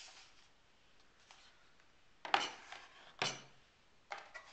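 Aluminium MacBook Air laptop set down on a wooden tabletop and handled: a rubbing knock about halfway through, the loudest, a sharper knock a second later, then a few lighter clicks near the end.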